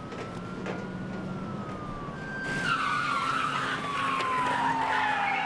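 Car tyres squealing: a whine that rises and falls, then a louder, harsher skid from about halfway through, falling in pitch as the car brakes to a stop.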